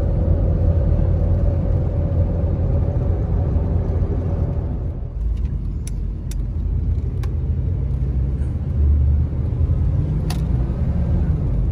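Cab noise of a 1995 Chevrolet G20 van under way: the throttle-body-injected 350 V8 running along with a steady low road rumble. A steady whine in the first half drops away about five seconds in, and a few light clicks follow.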